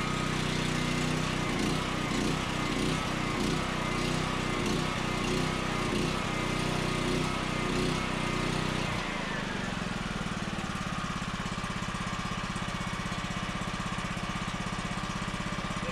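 A new dual-fuel portable generator's engine running on gasoline with no load, its breakers off, during the first minutes of its break-in run. About nine seconds in the engine note changes and settles a little quieter.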